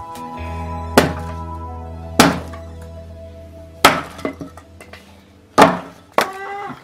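An axe splitting firewood: four sharp chops a second or two apart, with lighter knocks between, over steady background music. A rooster starts crowing near the end.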